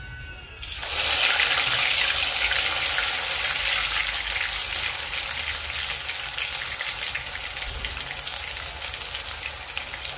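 Hot oil in an aluminium wok starting to sizzle loudly as a green paste is added, about a second in, then frying steadily and slowly easing off.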